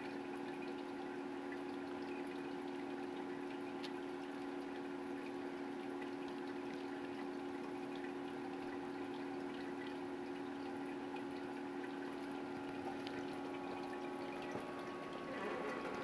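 Biocube 29 reef aquarium running: a steady pump hum with water trickling and dripping through the tank's filtration.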